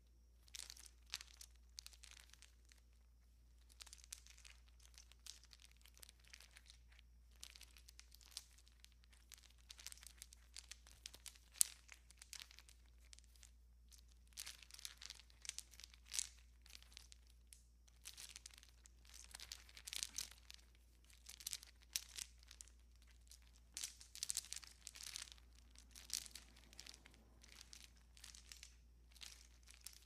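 A string of Christmas tree lights being handled and strung on a tree: irregular clicking, rattling and crinkling of the bulbs and wire, coming in busy flurries with short pauses between.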